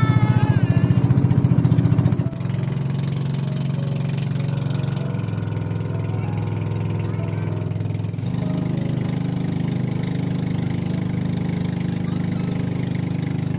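Small engine of a motorized outrigger boat (bangka) running steadily under way, its hum shifting slightly in pitch and level about two seconds in and again about eight seconds in.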